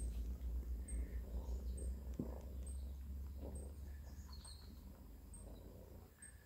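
British Shorthair cats purring steadily, a mother cat and her nursing kitten, the low purr slowly fading toward the end.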